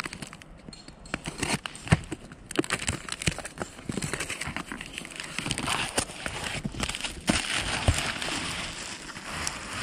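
A cardboard box being handled on a plastic groundsheet: scattered knocks and taps of the box, then a longer stretch of rustling and scraping as it is tipped up on end.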